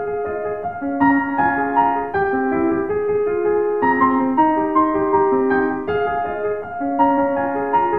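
Background piano music: a melody of evenly paced notes, each held briefly before the next.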